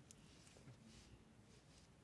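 Near silence, with a few faint, soft clicks.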